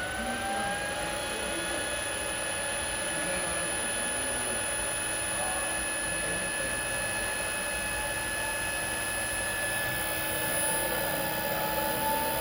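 Electric motor driven by an SV0037iS7 inverter, running with a steady whine made of several high tones. One tone glides up as the speed ramps during the first second, and another rises slowly near the end.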